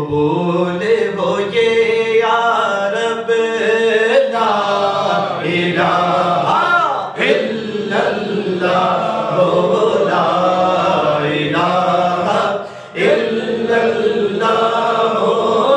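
A man's voice chanting a slow, drawn-out devotional melody with no instruments. His long held notes bend up and down in pitch, with a short break about three-quarters of the way through.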